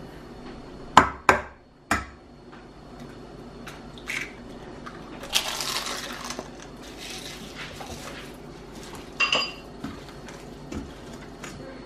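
Hands mixing raw chicken drumsticks, rice and eggs in a stainless steel bowl. Three sharp knocks on the bowl come about a second in, then handling noise around the middle, and a ringing clink from the metal bowl near the end.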